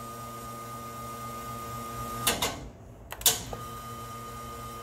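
Steady machine hum with a faint high tone. About two seconds in it is broken by a short noisy rush, and a second later by a sharp click, before the hum carries on.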